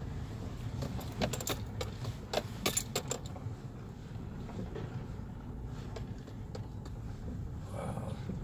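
Vehicle driving slowly over a rough dirt road: a steady low rumble, with a cluster of sharp rattling, jangling clicks from about one to three seconds in, as things in the cab shake over the bumps.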